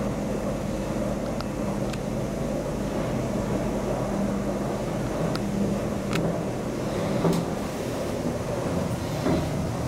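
1972 KONE ASEA Graham inclined elevator running, heard from inside the cabin: a steady drive hum with a scattering of light clicks and rattles, the loudest about seven seconds in.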